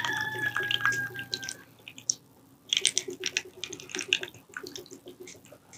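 Small electric pump of a toy water dispenser whining for about the first second and a half as water runs into a small cup. Then a patter of drips and light clicks follows.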